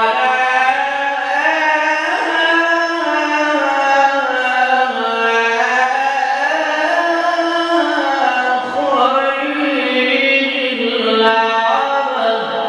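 A man's voice chanting the azan, the Islamic call to prayer, through a microphone and loudspeaker. It holds long, ornamented phrases with a short breath about two-thirds through before the next phrase.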